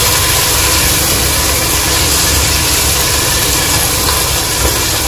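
Tomatoes frying in oil and spices in a pot, sizzling steadily as they are stirred with a wooden spatula, over a steady low rumble.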